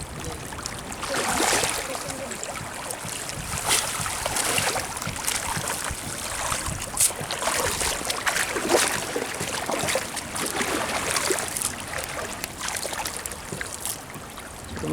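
Water splashing and sloshing irregularly, with several sharper splashes.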